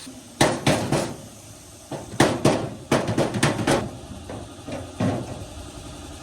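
About a dozen sharp knocks and clatters in uneven clusters, like hand tools or parts being knocked and set down during workshop repair work.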